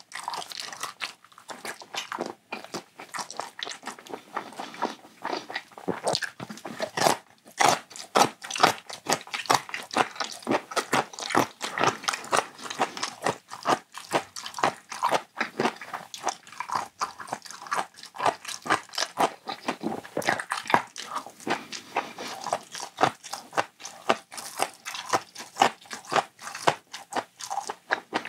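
Close-miked eating: a man chewing and biting gimbap and fried pancakes, a dense run of short wet clicks and crunches with a brief lull about seven seconds in.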